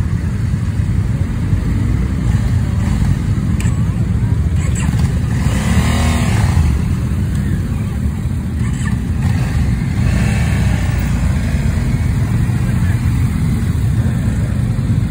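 Motorcycle engines running as bikes ride slowly past one after another, a steady low rumble, with one bike revving and passing close about six seconds in.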